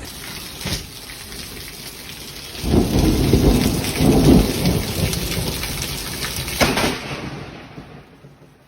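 Heavy rain with thunder: a sharp crack under a second in, a long loud rumble from about three seconds, and another crack near the end as the sound fades.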